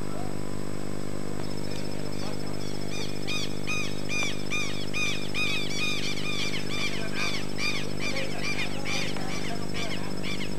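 Many short, high-pitched chirping calls follow each other quickly, a few a second, starting about a second and a half in and dying away near the end. A steady low hum runs underneath throughout.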